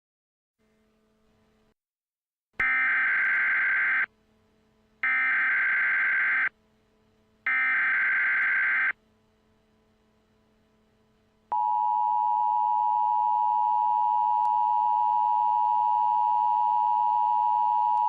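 Emergency Alert System broadcast tones: three short bursts of the SAME digital header data, about a second apart, then from about two-thirds of the way through the steady two-tone EAS attention signal, which signals that an alert message follows.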